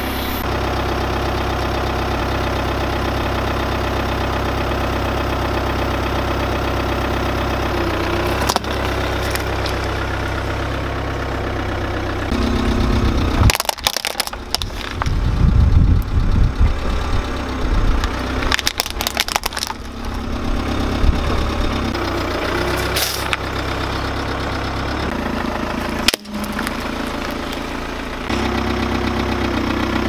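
Car engine idling steadily, then from about 13 seconds in the car rolls forward and its tyre crushes plastic toys, with sharp cracks and crunching over a louder rumble; near the end the engine is idling steadily again.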